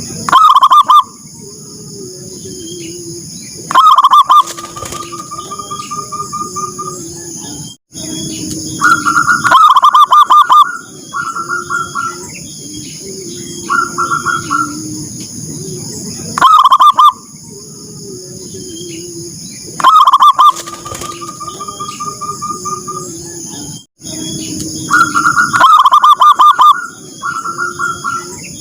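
Zebra doves calling: loud phrases of quick staccato cooing notes, repeated every few seconds. Softer, lower cooing notes run underneath.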